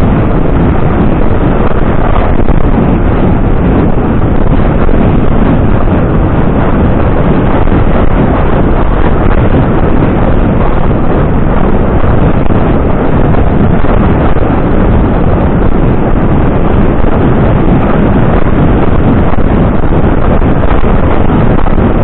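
Heavy, steady wind buffeting on the camera's microphone from the speed of a cantering horse, a loud rushing noise with no clear rhythm on top.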